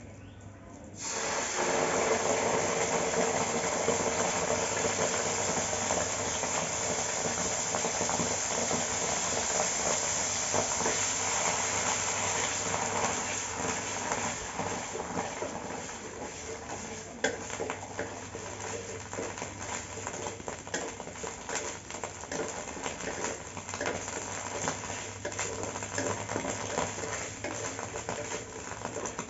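Indonesian spice paste (bumbu) frying in hot oil: a loud sizzle starts suddenly about a second in, then gradually eases into a softer, crackling sizzle, over a steady low hum.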